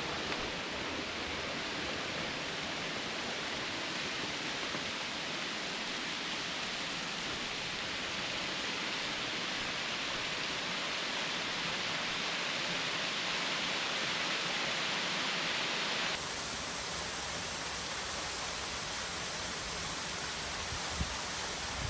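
Steady rush of Guide Falls, a waterfall, with a sudden change in its tone about sixteen seconds in.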